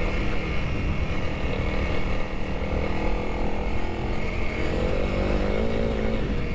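Honda CRF300L's single-cylinder engine running steadily under way on a dirt trail. Its pitch climbs a little about two-thirds of the way through, then drops back.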